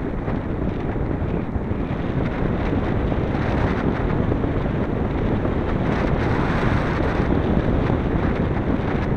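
Steady rush of airflow buffeting the microphone of a camera mounted on a flying model V-tail glider; no motor tone can be heard.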